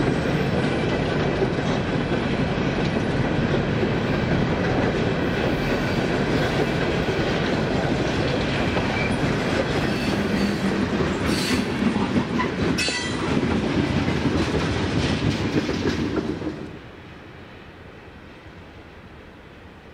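Freight cars (hoppers, gondolas and tank cars) rolling past close by: steel wheels clicking over rail joints under a steady rumble, with a few short high wheel squeals. About seventeen seconds in the sound drops suddenly to a faint, distant rumble of the train going away.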